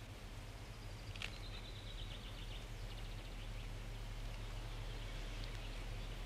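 Faint outdoor garden ambience over a low steady hum, with a short high trill of a small songbird about a second in.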